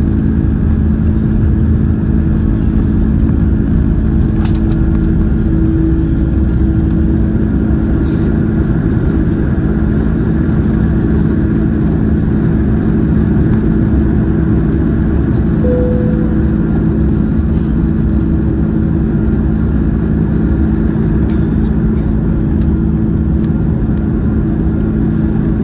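Airliner's turbofan jet engines at takeoff thrust, heard inside the cabin over the wing: a loud, steady rumble with a steady low hum as the plane lifts off and climbs.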